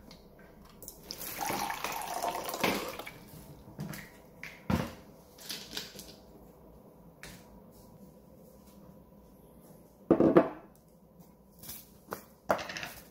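Kitchen handling sounds: a paper packet rustling over a ceramic mug for a couple of seconds, then scattered clicks and knocks as the mug is moved and set down on a stone countertop. The loudest knock comes about ten seconds in.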